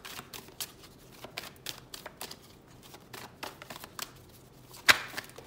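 A deck of cards being shuffled by hand: a rapid run of soft card flicks and slaps, with one louder snap near the end.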